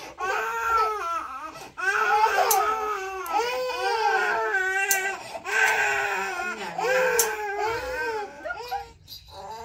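A baby crying hard, a high wail that runs on almost without pause, breaking briefly about two seconds in and again near the end. A few sharp clicks sound now and then under the crying.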